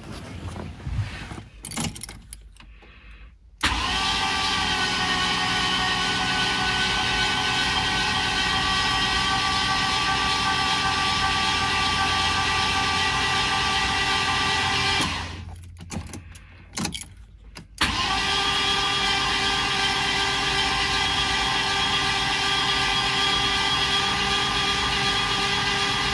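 Mercedes-Benz R107 500SL's M117 5.0 V8 being spun on its starter motor to build oil pressure: a steady, even whirring whine that starts abruptly about four seconds in, drops out for about three seconds in the middle, then resumes unchanged.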